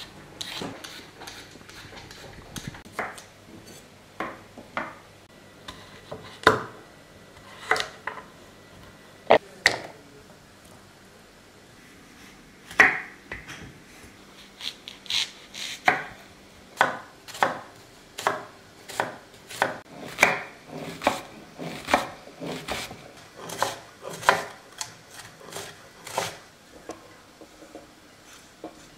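Kitchen knife cutting on a wooden board: a few separate cuts through potatoes, then a steady run of about two chops a second as red onion is finely chopped, stopping near the end.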